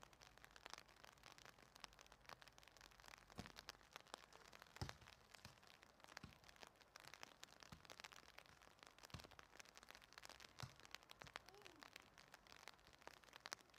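Faint, dense crackling patter of light rain, with a few soft thuds of a soccer ball being kicked on grass, the loudest about five seconds in.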